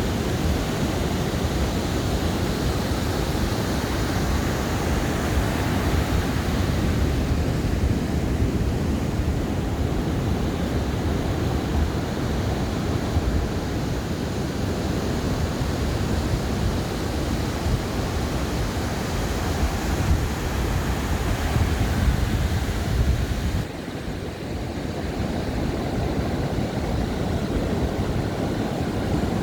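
Ocean surf washing onto a beach: a steady rushing wash with a heavy low rumble under it. Near the end it drops suddenly and then carries on a little quieter.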